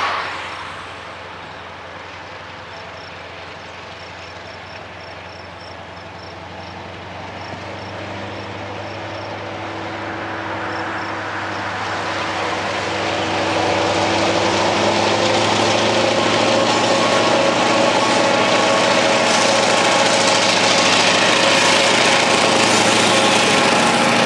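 EMD GP7 and FP9 diesel-electric locomotives running under power as they approach and pass. Their engine drone grows steadily louder over the first half, then holds loud and close as the locomotives go by, with wheel and rail noise from the train.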